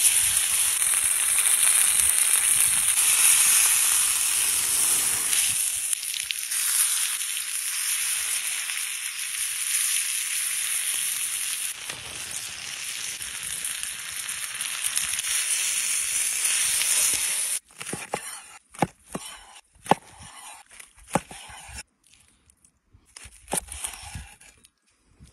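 Steak sizzling on a hot stone slab heated by a burning log, a loud, steady hiss that starts as the meat is laid down and goes on as butter melts around it. About two-thirds of the way in it cuts off, and a knife slicing the cooked meat on a wooden cutting board gives a series of sharp cuts and taps.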